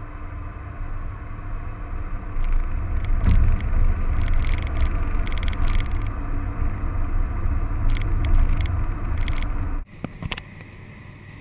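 Car running, a loud low rumble with scattered clicks and rattles in the middle, cut off abruptly about ten seconds in.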